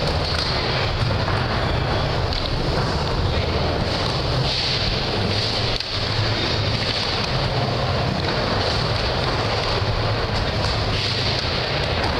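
Skateboard wheels rolling over a wooden mini ramp, a steady rumble with hiss and no pauses, dipping briefly about six seconds in.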